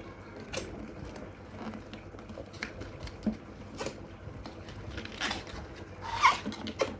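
Laptop packaging being handled: scattered small clicks and rustles, with two louder swishes about five and six seconds in.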